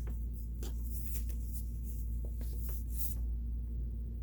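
Scattered light clicks and scratches from hands handling the controls of a Kenmore sewing machine, over a steady low hum.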